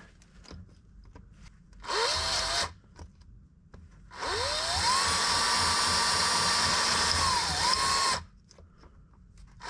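Electric drill drilling through the metal insert of a perished gear-selector oil seal on a gearbox. A short burst of about a second comes first, then a longer run of about four seconds; each time the motor's whine rises as it spins up, then holds steady, and it dips briefly just before it stops.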